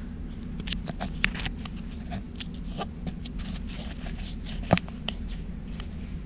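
Bombardier Flexity Outlook tram standing at a stop, its on-board equipment giving a steady low hum, with scattered light clicks and ticks over it and one sharper click about three-quarters of the way through.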